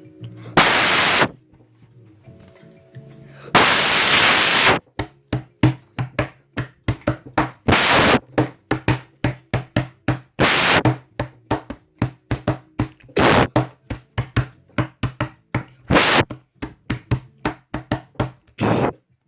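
Rhythmic beat of sharp knocks, several a second, broken by loud bursts of hissing noise, over steady low tones: homemade sound effects strung into a goofy beat.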